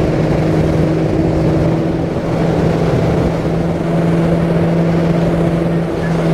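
Bass boat's outboard motor running at speed, a loud, steady drone that holds one pitch, over the rush of the hull through the water.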